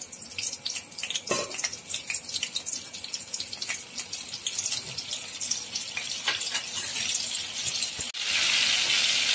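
Butter melting in hot oil in a kadai, crackling and spitting with scattered pops. A little after eight seconds it changes abruptly to a steady, louder sizzle.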